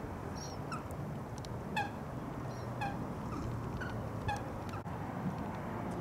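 Waterbirds calling: about nine short, sharp pitched notes, each bending slightly downward, spread over a few seconds above a low steady background hum.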